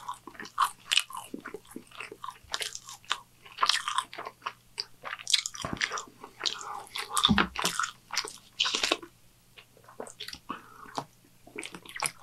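A man chewing a big mouthful of a triple-patty burger: many short, irregular mouth clicks and smacks.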